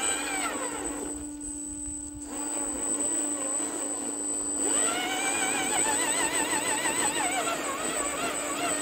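Electric drive motor and gears of a radio-controlled rock crawler whining, the pitch rising and falling with the throttle as it crawls over rock. It eases off about a second in, then picks up again and wavers as the motor works. A steady high whine runs underneath.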